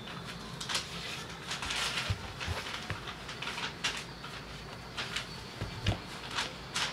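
Handling noise from a crocodile-leather dress shoe being picked up and turned over by hand: irregular soft scrapes, rustles and clicks of fingers and leather, with a few light knocks against the tabletop.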